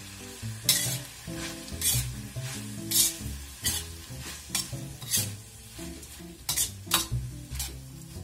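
Spatula stir-frying celery and pressed tofu strips in a wok: sizzling, with sharp scrape-and-toss strokes about once a second. Background music plays underneath.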